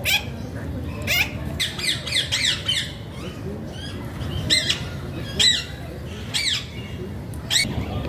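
Alexandrine parakeets squawking: a series of short, harsh screeching calls, several in quick succession about two seconds in, then single calls roughly a second apart.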